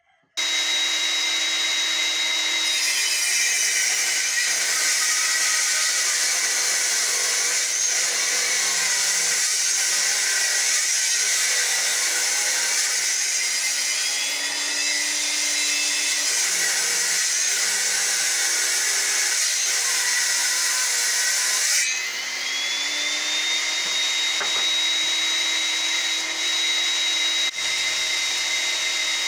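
Small table saw running and ripping a long wooden plank, the blade's cutting noise dense and loud for about twenty seconds. Near 22 s the cut finishes and the motor climbs back to a steady high whine, spinning free with no load.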